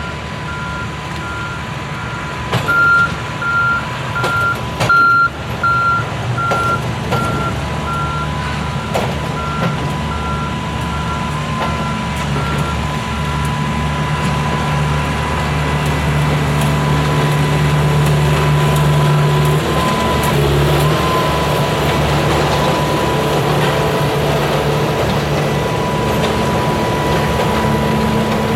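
Diesel locomotive engine running and growing louder, its note shifting about two-thirds of the way through, under a steady whine. An electronic beep repeats about twice a second and fades out about halfway through.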